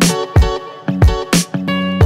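Background music: plucked guitar notes over a steady drum beat.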